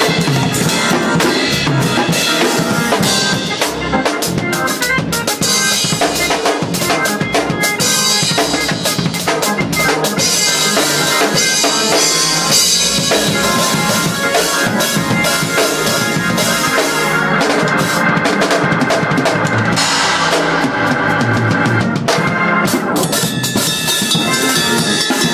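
Acoustic drum kit played hard and fast in gospel 'shed' style: rapid, dense snare and tom hits over bass drum, with crash cymbals.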